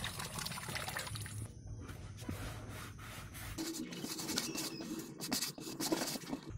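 Poultry feed being mixed: rice bran and wheat pollard worked into moistened feed, an uneven rustling and scraping with small wet crackles.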